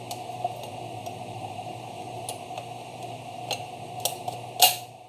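Short clicks and snaps of the plastic parts of a Jura Z6 coffee machine's brewing unit being handled and pried apart, over a steady hiss and hum. There are about five clicks, and the loudest comes near the end.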